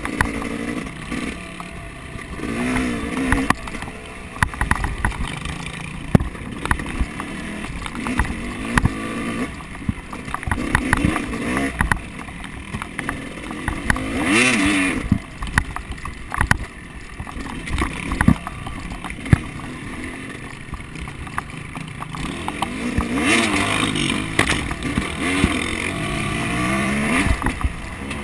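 Off-road vehicle engine revving up and down repeatedly as it is driven over rough terrain, with frequent knocks and rattles from the ride.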